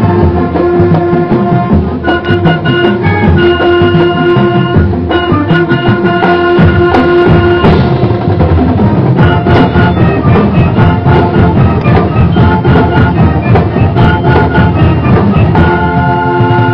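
Marching band playing live: brass and wind instruments holding notes over a steady drum beat.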